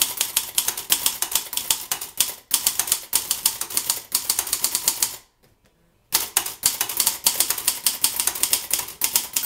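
Fast typing on a Royal Mercury ultra-portable manual typewriter: a quick run of sharp clacks as the typebars strike the platen, breaking off for about a second just past halfway, then resuming at the same pace.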